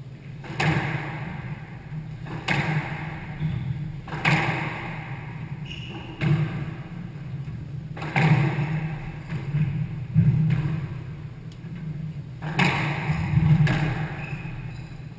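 Squash ball being struck by rackets and hitting the court walls during a rally: sharp cracks with a short echo, about one every two seconds, over a steady low hum.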